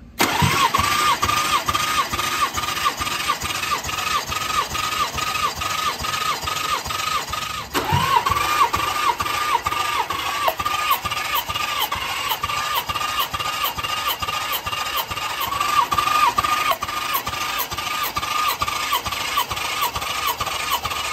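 Starter motor cranking a Nissan VG30DE V6 that has all its spark plugs out and the fuel pump disabled, so it spins over evenly with a rhythmic whine and never fires, as it is turned over for a compression test. The cranking stops briefly about eight seconds in and then starts again.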